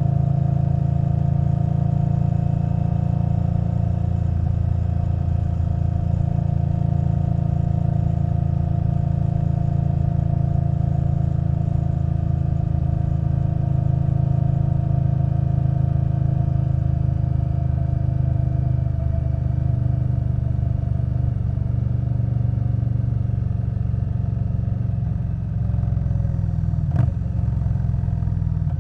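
Indian Scout Bobber Twenty's liquid-cooled V-twin engine running steadily through a Vance & Hines Twin Slash exhaust while cruising, its pitch easing down a little in the second half. A single sharp click comes near the end.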